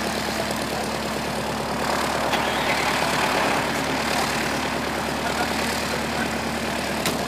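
A de Havilland Tiger Moth's four-cylinder Gipsy Major engine running steadily at low power as the biplane taxis, a little louder for a second or two about two seconds in.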